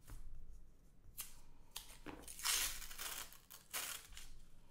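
Half-dollar coin rolls being broken open by hand: a few short tearing, rustling bursts of the roll wrapper, the longest about halfway through, with light clicks of the coins.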